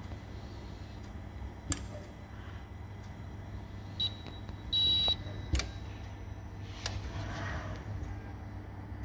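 Hoefler EMZ 632 gear checking machine running with a steady low hum and sharp mechanical clicks. A short high electronic beep comes about four seconds in, followed by a longer half-second beep.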